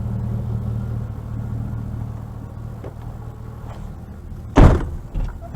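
Vehicle's engine and road rumble heard inside the cabin, slowly fading, then one loud sudden thump about four and a half seconds in.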